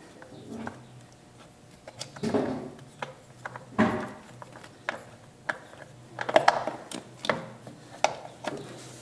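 Hand work on a motorcycle's oil filter: irregular knocks, clinks and scrapes of metal parts and tools being handled as the loosened filter is unscrewed and taken off.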